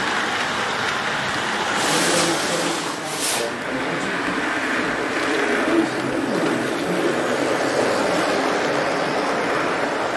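HO scale model freight train running past close by, its wheels and motor making a steady rolling rumble on the track. Two brief hisses come about two and three seconds in.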